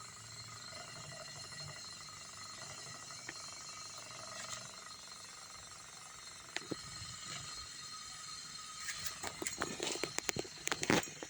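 Small electric fan motor, rigged as a homemade bench grinder, running with a faint steady hum that weakens about halfway through. A few clicks and knocks come near the end.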